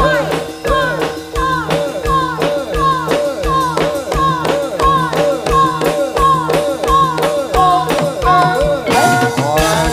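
Jathilan accompaniment music played loud: a low drum beating about twice a second under held tones, with a short melodic phrase that rises and falls over and over, changing to a busier, noisier passage about nine seconds in.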